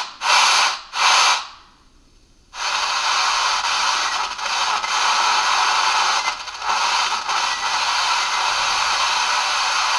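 Steepletone retro-style radio's loudspeaker giving out static hiss with no station: it cuts in and out in short bursts at first, drops out for about a second, then comes back as a steady hiss. The repaired set is powered and playing.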